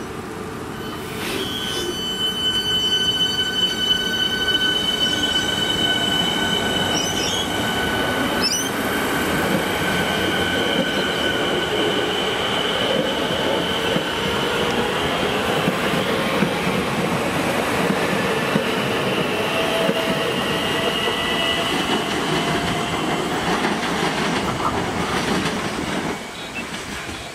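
Siemens Nexas electric suburban trains running through the station: a loud rumble of wheels on rail, with a steady high-pitched wheel squeal from about a second in that fades out around the middle. The sound drops abruptly near the end.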